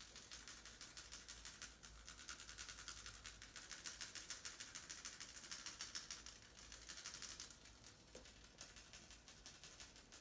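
Faint, rapid rhythmic strokes of a barber's hands rubbing and patting during a massage. The strokes are steady in pace, strongest in the middle and fading near the end.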